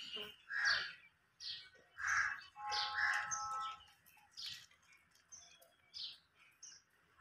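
Small birds chirping: short high chirps that fall in pitch, coming irregularly every half second to a second.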